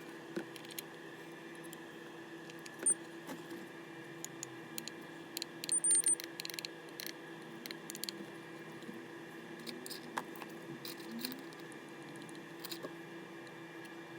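Scattered light metallic clicks and taps of small tools being handled on a repair bench, with a quick cluster of them about six seconds in, over a steady electrical hum.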